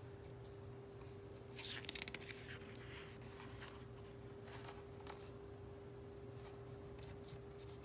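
Faint rustling and handling of a paperback picture book's pages, in a few short soft scrapes, over a steady faint hum.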